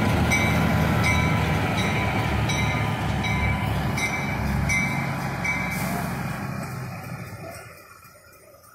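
GE 44-ton center-cab diesel-electric switcher running as it pulls away, its diesel sound fading out over the last second or two. A high ringing repeats about three times a second and stops about five and a half seconds in.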